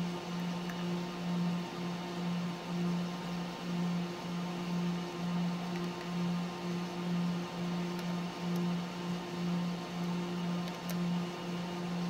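Steady low machine hum from running equipment, swelling and fading evenly a little under twice a second.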